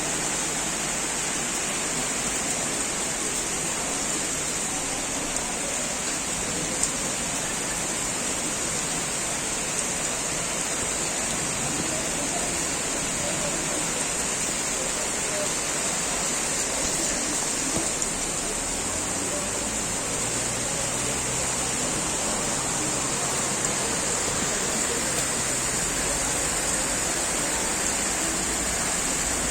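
Heavy rain pouring down with a steady hiss.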